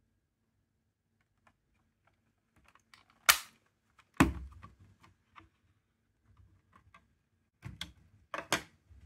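Plastic casing of an Earth battery-powered mosquito repeller being handled and its cover unclipped: a sharp plastic snap about three seconds in, a heavier knock a second later, light ticks, then two more clusters of plastic clicks near the end.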